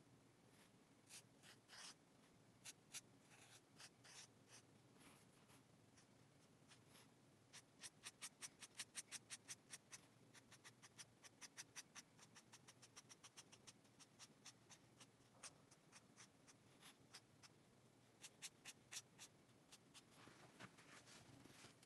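Black marker nib scratching across paper in short, quick strokes, faint and close. A fast run of strokes comes about eight to ten seconds in, with sparser strokes before and after.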